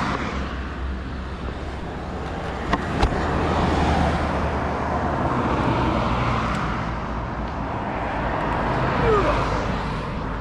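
Honda Innova 125 motorcycle's small four-stroke single-cylinder engine running on the move, under a steady rush of wind and road noise, with a short click about three seconds in.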